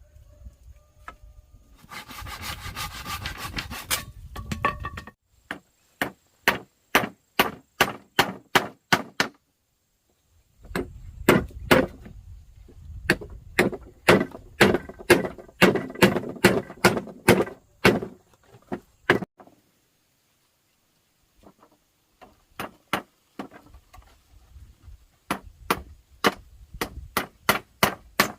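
Rapid chopping blows on wood, about three strikes a second, in runs of a few seconds with short pauses between them, after a brief stretch of rubbing or scraping near the start.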